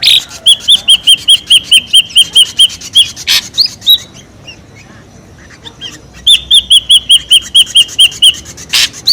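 Ashy drongo calling: two quick runs of short, hooked whistled notes, about six a second, each run lasting about two seconds, with a short harsh call just after the first run and another near the end.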